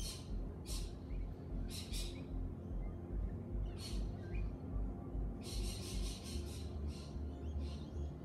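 Birds calling: short high-pitched calls every second or two, with a quick run of calls about five and a half seconds in, over a low, pulsing rumble.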